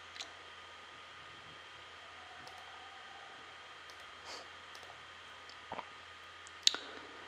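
A few faint computer mouse clicks, scattered and sharp, over a low steady hiss of room noise; the loudest click comes near the end.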